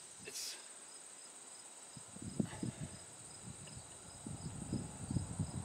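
Insects chirping steadily, a high-pitched trill with a faint evenly pulsing note below it. From about two seconds in, irregular low rumbling and knocks join in and are the loudest sound.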